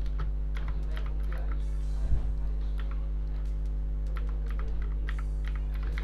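Quick, irregular clicking of keys being pressed, like typing on a computer keyboard, over a steady low hum.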